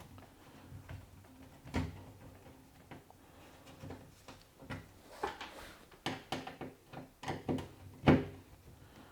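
Phillips screwdriver undoing the screws that hold the door lock of an LG front-loading washing machine: irregular small clicks and knocks of metal on plastic, a few of them louder.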